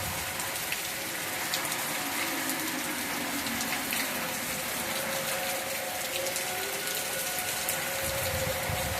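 Steady heavy rain, with a faint, distant outdoor tornado warning siren wavering underneath, its tone fading in and out.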